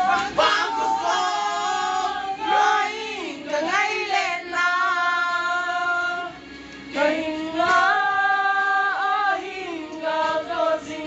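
A woman singing a slow melody with long held, wavering notes over a sustained backing.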